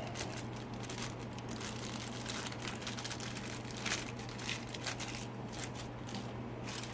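Small, irregular clicks and scrapes of a cheap plastic digital caliper's sliding jaw being worked open and shut by hand, over a low steady hum.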